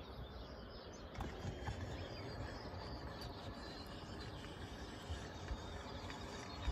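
Faint outdoor ambience with a few soft knocks as the crank-up arm of a Winegard Batwing TV antenna mount is lowered toward the roof.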